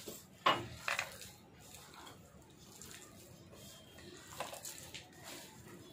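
A hand kneading chopped spinach, chicken strips and dry flour in a bowl: soft squishing and rustling, with two sharp knocks against the bowl in the first second and a smaller one about four and a half seconds in.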